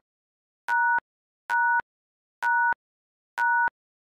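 Quiz timer beeping once a second: four short, identical electronic beeps, each a steady two-tone chime.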